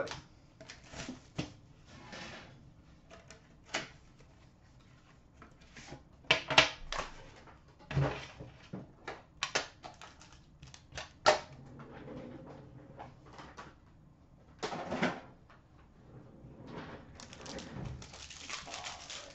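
Handling noise from opening a sealed hockey card box: scattered clicks, taps and rustles of cardboard and plastic packaging, with a soft thump about eight seconds in. Near the end comes a longer crinkling rustle as the card pack's wrapper is torn open.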